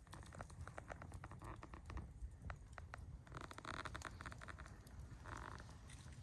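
Faint wood campfire crackling, with many irregular sharp pops and snaps and a brief hiss midway.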